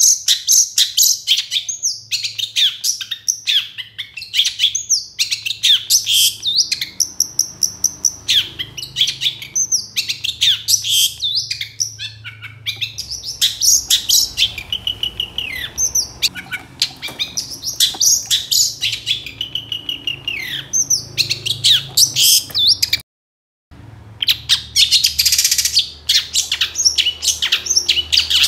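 Long-tailed shrike (cendet) singing at full tilt: a fast, unbroken jumble of sharp chirps, trills and whistled notes. It breaks off for a moment about three-quarters of the way through, then carries on.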